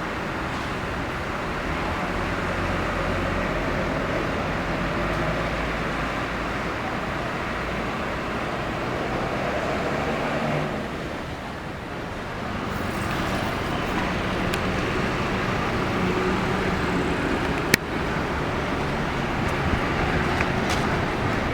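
Bus engines running amid steady road traffic noise, with a single sharp click about eighteen seconds in.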